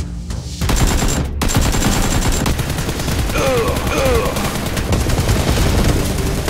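Rapid, continuous automatic gunfire sound effects, starting about half a second in. A short wavering yell is heard midway as a man is hit.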